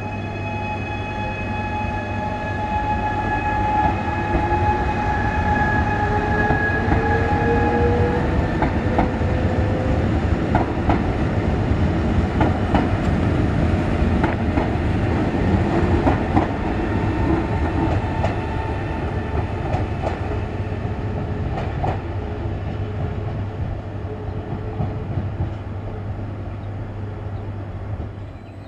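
Trenitalia Stadler FLIRT electric multiple unit running past close by. Its electric traction drive whines and rises in pitch as it picks up speed, then the wheels clack over rail joints as it goes by, loudest midway and fading towards the end.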